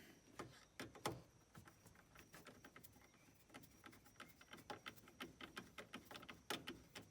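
Faint, irregular small clicks and taps from hand work with a screwdriver on plastic steering-column parts, coming faster in the second half.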